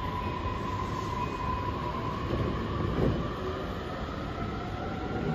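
JR Nambu Line electric train pulling away from the platform: its motor whine slowly rises in pitch as it accelerates, over a low rumble of wheels that swells about three seconds in.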